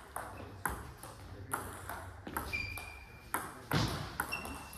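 Table tennis rally: the ball clicks off the rackets and the table in quick alternation, about two or three hits a second, some with a short ringing ping. A louder, deeper knock comes a little before the end.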